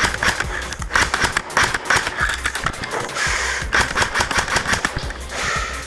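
Airsoft electric guns firing in rapid strings, a fast clicking rattle throughout, over background music.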